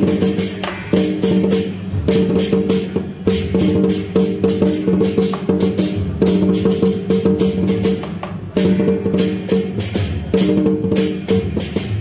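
Temple procession music: drums, cymbals and wood-block strikes beating a fast steady rhythm under a melody of held notes that comes in short phrases.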